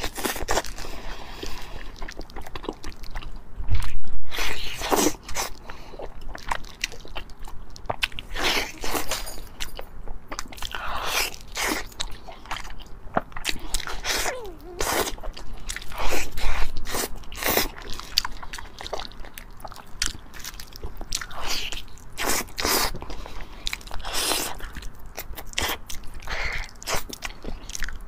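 Close-miked mouth sounds of someone eating braised pork with its skin on: biting into it, tearing meat off the piece, and chewing with irregular wet smacks and clicks. There are two louder bumps, about four and sixteen seconds in.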